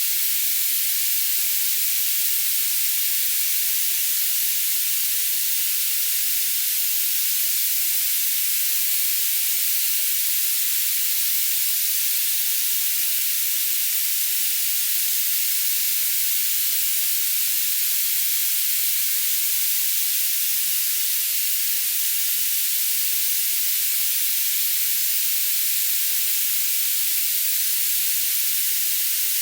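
Steady, high-pitched hiss of tinnitus-masking noise, with nothing in the low and middle range beneath it.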